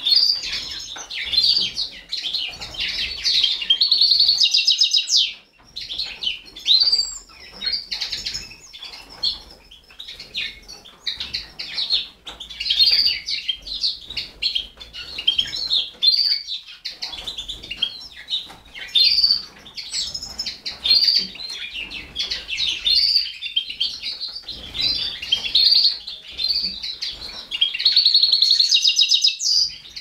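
Canary nestlings giving rapid, high-pitched begging chirps while being fed, in dense bursts that peak a few seconds in and again near the end.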